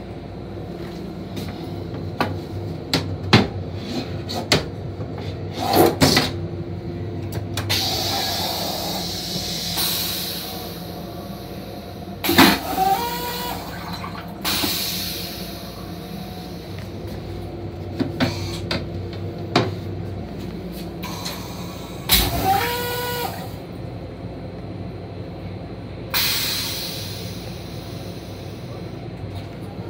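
Plastic seat and lid of a train restroom toilet being handled: repeated clacks and knocks as they are lowered and raised, with a couple of short squeaks and bursts of hiss. A steady low hum from the running railcar lies under it all.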